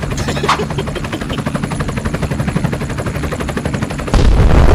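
Rapid automatic gunfire, a continuous machine-gun sound effect. Near the end a much louder low rumble cuts in suddenly.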